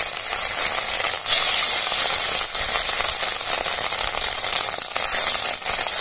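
Fish roe, seasoned with salt and turmeric, frying in hot mustard oil in an iron kadhai: a loud, steady sizzle broken by a few sharp crackles and pops.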